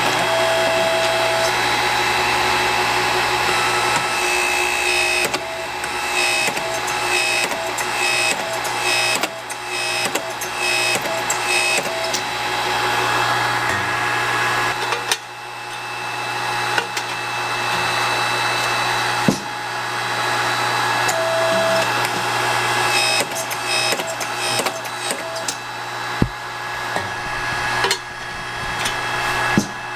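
Shop machinery running with a steady electric hum. A short beep sounds near the start and again about two-thirds of the way through. Two stretches of rapid, evenly repeated clicking fall in between.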